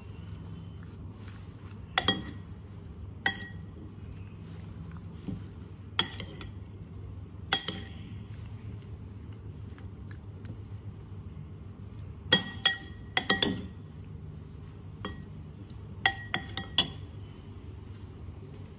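A metal spoon clinking against a ceramic bowl while tossing a dressed squid salad: about a dozen sharp, ringing clinks at irregular intervals, some in quick pairs and clusters.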